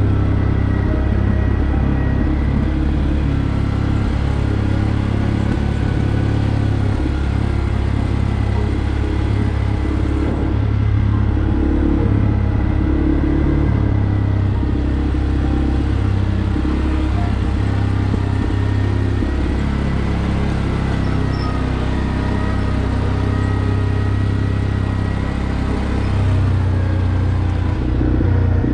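CF Moto 450 ATV engine running steadily under load on an uphill dirt track, with small rises and dips in pace but no sharp revving.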